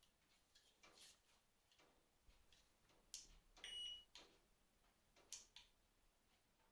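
Electronic fishing bite alarm giving one short high-pitched beep about halfway through, among a few faint scattered clicks.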